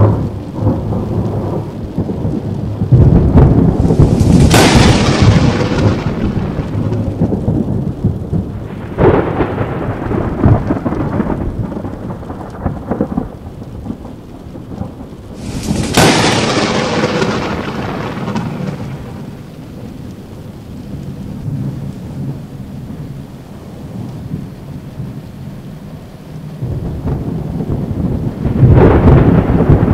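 Thunderstorm with rain: sharp cracks of thunder about four seconds in and again about sixteen seconds in, each trailing off into a long rumble. A smaller peal comes about nine seconds in, and another loud rumble builds near the end.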